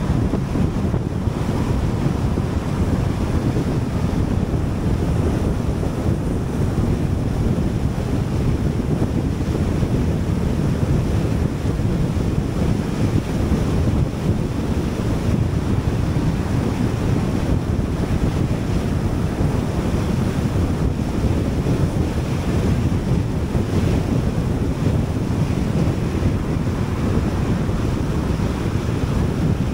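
Car travelling at highway speed: a steady low rush of tyre and wind noise.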